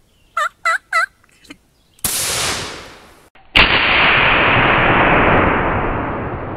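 Three quick turkey yelps, then a double-barrel 12-gauge shotgun fired twice about a second and a half apart; the second blast is the louder and fades slowly over about three seconds.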